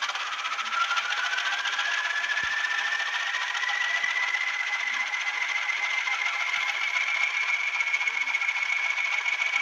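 Class 20 diesel locomotive sound from an N gauge model's DCC sound decoder, played through the model's tiny speaker, thin with little bass: the English Electric engine clattering evenly just after start-up, with a turbocharger whistle that rises in pitch over the first few seconds and then holds steady.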